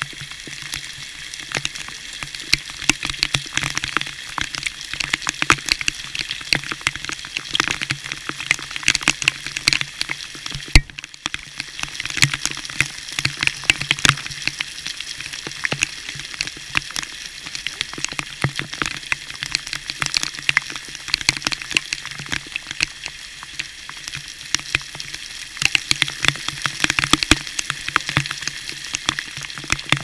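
Waterfall water falling onto a GoPro camera: a steady hiss of falling water with dense, irregular taps of drops striking the camera.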